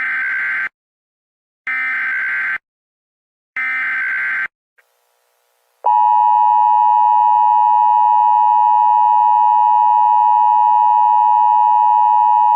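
Emergency Alert System tones: three short bursts of buzzing SAME header data tones about two seconds apart, then, about six seconds in, the loud, steady two-tone EAS attention signal, held without a break.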